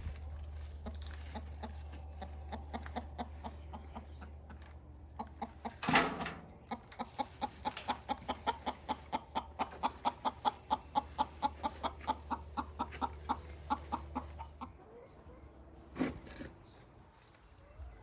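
A hen clucking, a few scattered clucks at first, then a long even run of about four to five clucks a second. A loud knock comes about six seconds in. A low steady hum underneath stops near the end.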